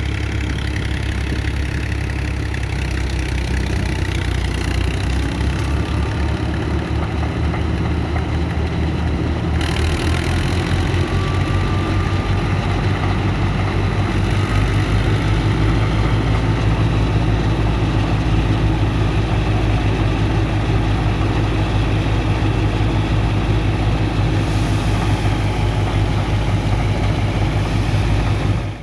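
Tractor engine running steadily, driving a wheat thresher. The sound changes about ten seconds in and grows a little louder.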